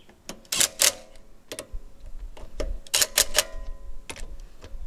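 Sharp metallic clicks and clinks in small clusters as lug nuts are run down onto the wheel studs with a hand tool, a few of them ringing briefly; the clusters come about half a second in and again around three seconds in.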